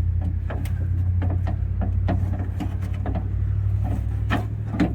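Scattered light clicks and knocks as a car's trunk-release latch and its plastic clips are worked loose inside the trunk lid, over a steady low hum.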